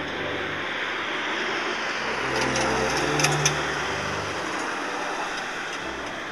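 Four-engined Airbus A380 jet airliner passing overhead in flight, a steady rushing jet noise that swells a little toward the middle. Two sharp ticks come a little past the middle.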